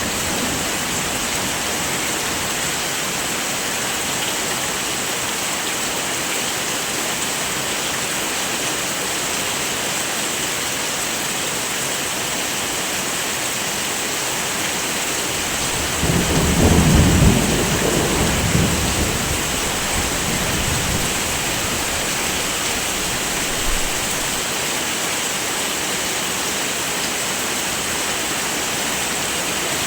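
Steady heavy rain, with a low roll of thunder about halfway through that swells for two or three seconds and fades.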